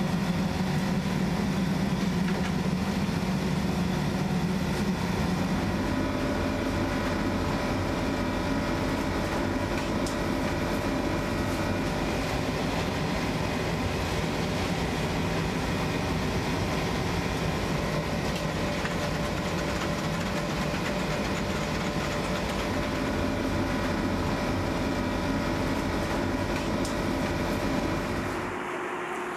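Steady machinery drone inside a field kitchen, an engine-like hum with several constant tones. It drops off suddenly near the end.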